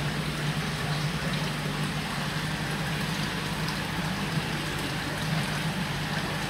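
Steady splashing and bubbling of circulating water in a koi fry tank, over a steady low hum.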